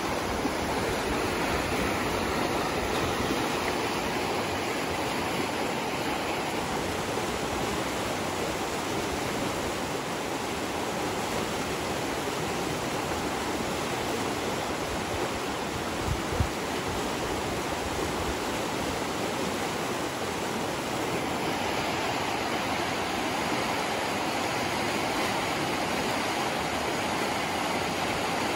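River rapids: white water rushing steadily over rocks.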